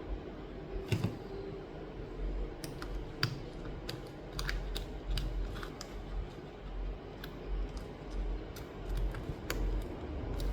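Scattered small sharp clicks and taps, several a second at times, as the replacement charging-port board of a Samsung Galaxy Tab A8 is handled and pressed into place inside the tablet. A steady low hum runs underneath.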